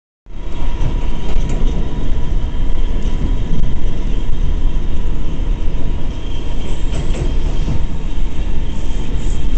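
Inside an R179 subway car running on the A line: a loud, steady rumble of wheels on rail, with a thin steady whine above it and a few sharp clicks.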